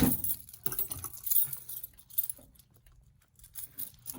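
Ring of keys jangling as a key is handled, with a sharp click at the start and scattered metallic clinks over the next couple of seconds, then quieter, with a few more clinks near the end.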